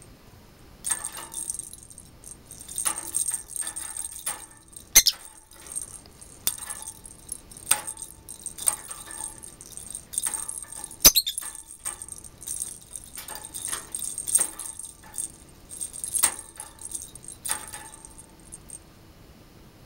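A bell in a hanging plastic ball toy, jingled in repeated bouts as a peach-faced lovebird shakes and bats it, with two sharp knocks about five and eleven seconds in.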